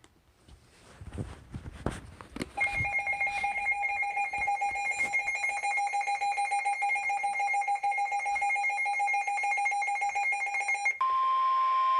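Emergency Alert System alert tones. After a few crackles, a harsh, steady, pulsing multi-tone attention signal sounds for about eight seconds. It cuts off and a single steady alert tone takes over, the tone that introduces the next warning message.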